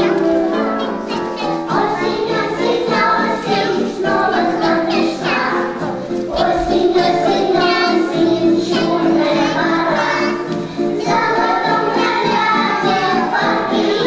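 A children's song with children's voices singing over a musical accompaniment.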